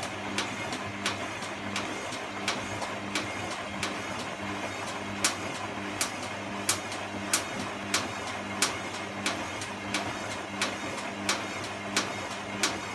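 A regular mechanical clicking, about three sharp clicks every two seconds, over a steady low hum.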